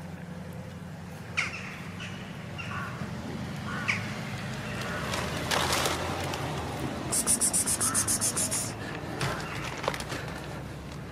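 Outdoor ambience around stray cats eating dry food from a tray: a steady low hum, a few short high calls in the first few seconds, and a burst of rapid high-pitched chattering, about ten pulses a second, about seven seconds in.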